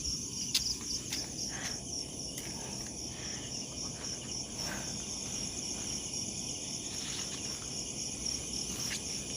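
Crickets and other insects chirring in a steady, high, finely pulsing chorus, with a couple of faint clicks about half a second and a second in.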